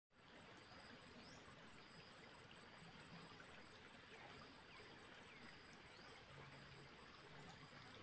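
Faint forest ambience: a stream trickling under a steady, high-pitched trilling of insects, with a few short chirps.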